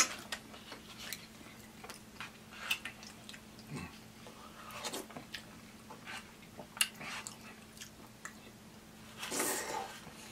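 Close-miked chewing and mouth sounds of a person eating, with irregular small clicks and crackles and a brief scrape of a plastic fork in a cup near the end.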